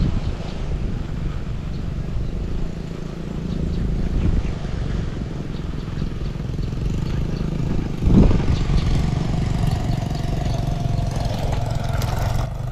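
Steady low rumble of motor traffic from a nearby road, with a dull thump about eight seconds in.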